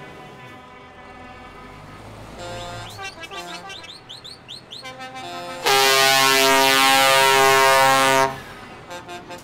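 Air horn on a Scania tractor unit sounding one long blast of about two and a half seconds in the middle, several notes at once. It is preceded by shorter, quieter horn notes and chirping glides.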